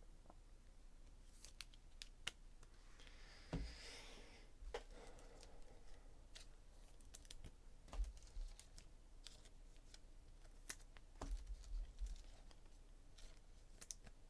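Quiet room with faint, scattered clicks and taps, and a brief soft rustle about three to four seconds in.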